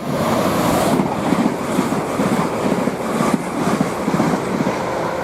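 A pair of coupled Class 387 electric multiple units running past on the main line: a loud, steady rush of wheel and rail noise with a rapid, even pulsing running through it.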